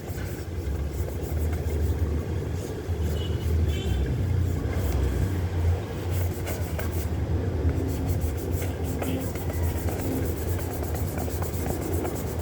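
Toothbrush scrubbing a soapy plastic tablet case in quick, repeated strokes, over a low rumble.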